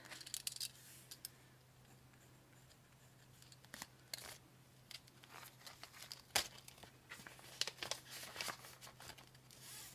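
Faint rustling and crinkling of paper money and clear plastic binder pockets being handled, with scattered sharp clicks and a page turned near the end.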